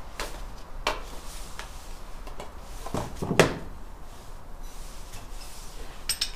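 Scattered knocks and clinks of tools being picked up and handled on a wooden workbench. One knock a little past halfway is louder than the rest, and a few quick clicks come near the end.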